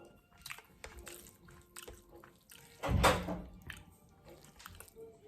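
Close-miked eating sounds: soft mouth clicks and wet smacks, with one louder wet sound lasting about half a second around three seconds in.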